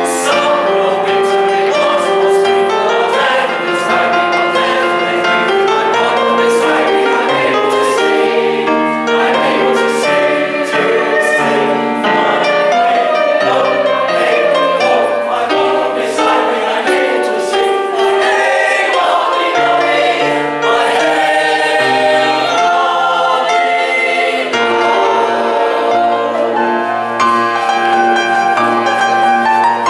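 Mixed amateur chorus of men and women singing a lively dance song in parts, with piano accompaniment.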